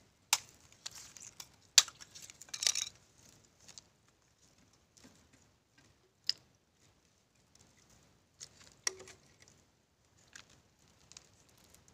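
Scattered sharp clicks and knocks of sea urchin shells being broken open and handled over plastic food containers, with a short scraping rasp about two and a half seconds in; the clicks thin out and grow fainter after the first few seconds.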